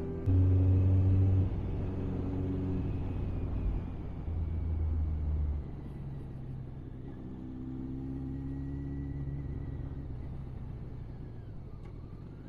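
Honda Blackbird motorcycle's inline-four engine running under way, with road and wind rumble. There are two louder low surges in the first six seconds, and the engine note rises gently in the second half.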